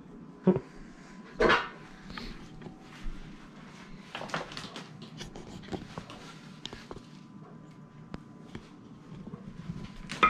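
Kitchen handling noises: two sharp, loud knocks in the first couple of seconds, then scattered lighter knocks and rustles as a plastic cutting board of seasoned meat is carried over and the meat is laid into a slow cooker's crock. A low steady hum runs underneath.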